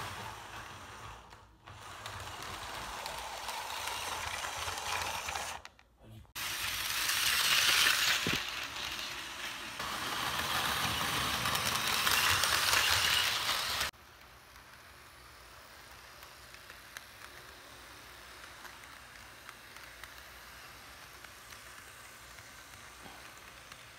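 Electric model trains running on layout track: a steady whirring rattle of motors and wheels. It cuts out abruptly twice and drops suddenly a little over halfway through, leaving a quieter stretch with light ticks of wheels over the rail joints.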